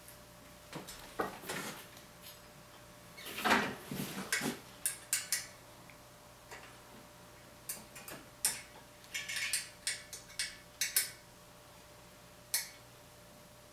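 Scattered small metal clinks and clicks of bicycle parts being handled as a hub-motor wheel's axle is set into the fork dropouts and its washers and nuts fitted, with a busier run of clinks about three and a half seconds in.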